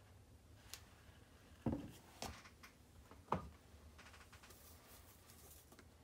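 Groceries handled on a kitchen counter: a few short, light knocks as an almond-milk bottle and a can of coconut milk are set down and picked up. The loudest knock comes a little before two seconds in, and there is a faint rustle near the end.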